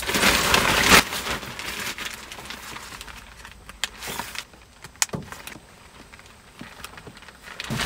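Rustling of a raincoat being put on, loudest in the first second, then quieter rustles broken by a few sharp clicks.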